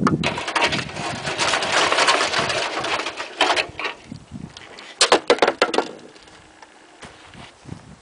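Wet concrete being scraped and pushed into a ring mold by hand: dense scraping for the first few seconds, then a quick run of sharp knocks about five seconds in.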